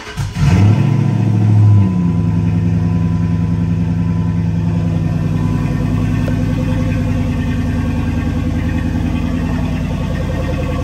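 A Dodge Charger's 5.7 HEMI V8 cranks briefly and starts, revs up for about a second, then settles to a steady idle about two seconds in.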